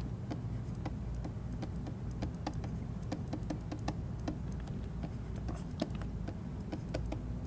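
Stylus tapping and scratching on a pen tablet as words are handwritten: an irregular run of small clicks, several a second, over a steady low hum.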